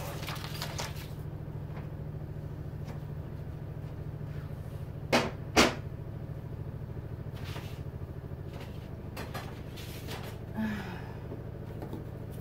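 Picture-frame parts (glass, mat and backing) being handled on a wooden table: two sharp knocks a little past five seconds in and a few fainter taps later, over a steady low hum.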